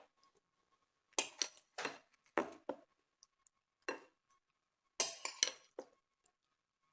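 Serving utensils clinking and scraping against a plate and bowl as salad is dished out: about ten short knocks in three clusters.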